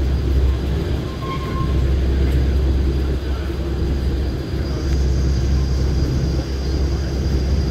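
Gornergratbahn rack-railway train running, heard from on board: a steady low rumble with wheel and rail noise and a thin steady high whine that grows a little stronger about two-thirds of the way in.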